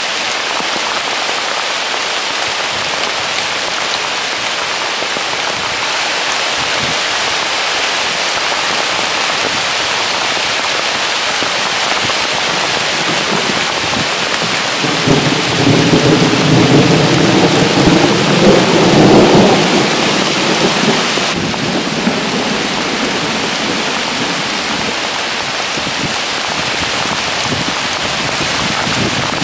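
Heavy summer rain falling steadily in a downpour, with a rumble of thunder that swells about halfway through, lasts several seconds and fades.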